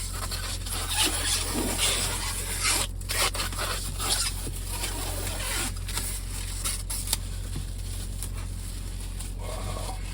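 Rustling and scraping as a protective cover is pulled off a new steering wheel, busiest in the first few seconds and dying down after that, over a steady low electrical hum.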